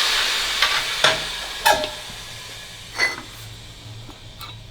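Compressed air hissing and fading away over about two seconds, with sharp metallic clinks of steel parts about a second, a second and a half and three seconds in.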